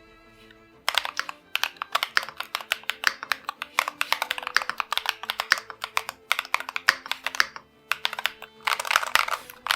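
Typing on a Keychron V1 mechanical keyboard with red switches: quick, irregular keystrokes clacking, starting about a second in and speeding into a faster flurry near the end. Soft background music plays underneath.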